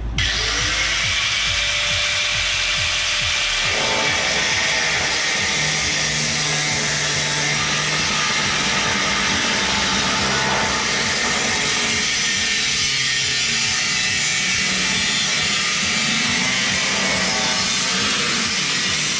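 A power tool cutting through rusted car-body sheet metal, running steadily with a loud hiss; its whine rises in pitch as it spins up at the very start.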